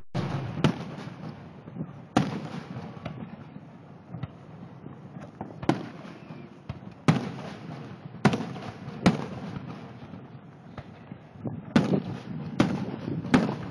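Aerial fireworks shells bursting: sharp bangs at irregular intervals, one every second or two, each fading quickly.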